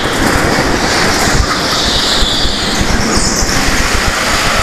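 Go-kart running on an indoor track: a steady, loud engine and rolling noise. A high tyre squeal comes in about a second in and lasts a couple of seconds.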